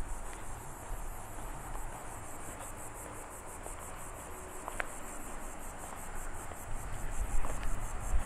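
Cicadas buzzing in a high, rapidly pulsing chorus, with a low rumble that swells near the end.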